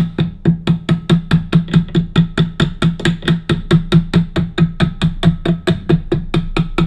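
Rapid, even hammer taps on a socket, about five a second, each a short knock with a brief metallic ring. They are pressing a door lock cylinder's chrome cap back on, with the cylinder sandwiched between two sockets. The tapping stops abruptly at the end.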